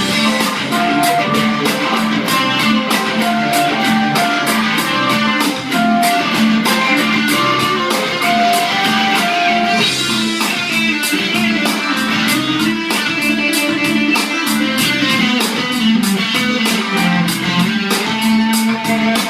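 Electric guitar playing over a steady, evenly spaced beat.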